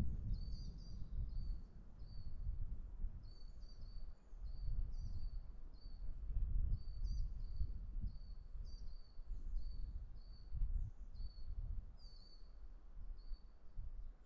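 A small songbird singing a long run of short, high chirping notes, about two a second, some with a quick flick up or down. Under it runs an uneven low rumbling noise.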